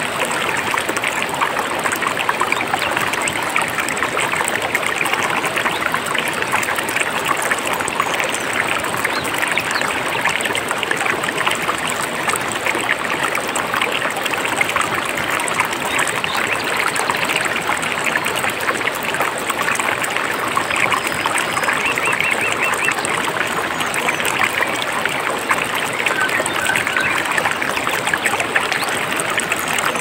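Mountain stream flowing, a steady rush and trickle of water.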